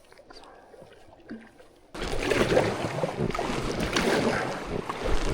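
Rushing river water with wind buffeting the microphone, starting abruptly about two seconds in after a quiet stretch.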